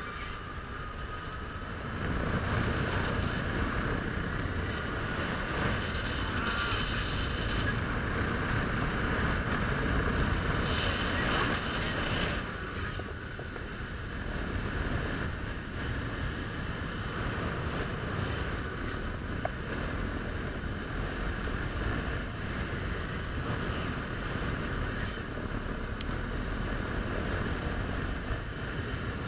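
Wind rushing over the microphone of a rider's camera as the arm of a Fabbri Giant Booster thrill ride swings the gondola through the air. It gets much louder about two seconds in, eases briefly about halfway, and has a steady higher whir beneath it.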